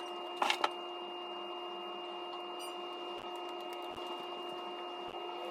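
A steady hum runs throughout. About half a second in comes a brief scraping as a cork is gouged with the tip of a bottle opener to widen its hole.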